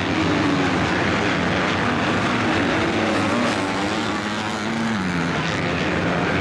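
Motocross bike engines revving hard on the track, the engine note rising and falling as the riders accelerate and shift. One note drops in pitch about five seconds in.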